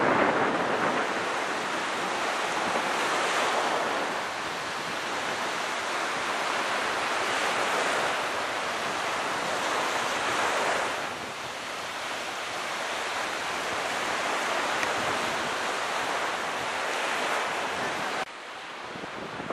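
Small waves breaking and washing up a sandy beach, mixed with wind. The noise rises and falls with the surf and drops suddenly near the end.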